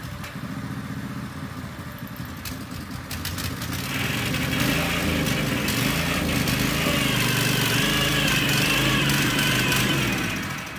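YIKITO HD230 tiller's 7 HP four-stroke petrol engine running as its rotating tines work the soil. It grows louder about four seconds in, holds steady, then falls away near the end.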